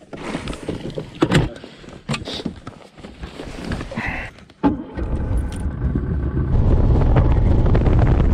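Knocks and clatter of gear and footsteps on a bass boat's deck, then, about five seconds in, the boat's outboard motor starts and the boat gets underway: a steady low engine rumble that builds over a second or two, with wind on the microphone.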